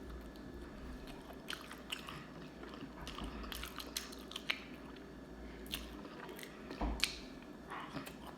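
Close-mic chewing of French fries: quiet mouth sounds with scattered small crunches and wet clicks. A fry that is hard and tastes off.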